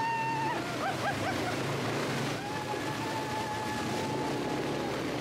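Quad bikes driving through a shallow rocky river: water splashing and rushing around the wheels over the running ATV engines. A long steady high-pitched tone is held for about two seconds from about halfway through.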